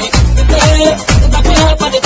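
Electronic dance music with a heavy bass beat; deep bass notes slide down in pitch over and over under a repeating melody.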